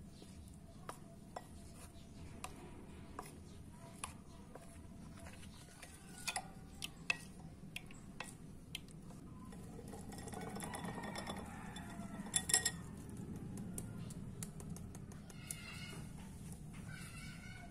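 A metal spoon clinking and scraping against a glass mixing bowl while stirring flour and liquid into a thick batter. Scattered sharp clinks, then a stretch of steadier stirring with a few louder clinks about two thirds of the way through.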